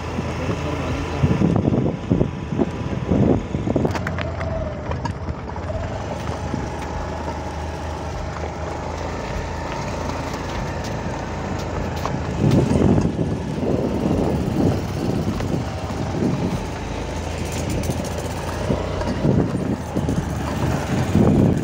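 Motor vehicle engine running steadily as it is driven slowly over a rough, unpaved dirt road, with louder low rumbles coming and going.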